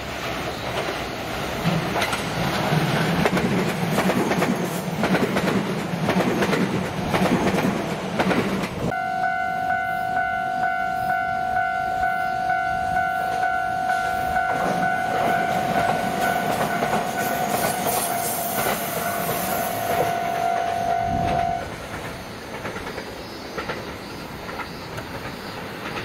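JR West 227 series electric train running along the track towards the listener. After a sudden cut about nine seconds in, a level crossing's electronic warning bell rings steadily as the train comes through, stopping abruptly about 21 seconds in.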